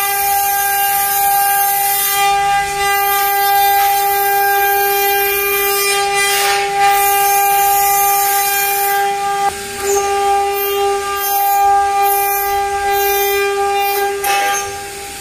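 Hiteco spindle of a 5-axis CNC milling machine running at speed while milling a sheet, giving a steady high-pitched whine, with brief rushing noises from the cut a few times.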